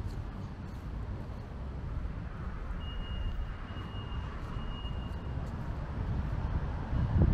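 City street ambience: a steady low rumble of traffic, with a thin, high steady tone for about two and a half seconds in the middle.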